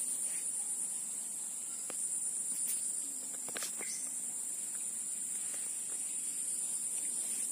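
Steady high-pitched buzz of an insect chorus, with a few faint clicks about two and three and a half seconds in.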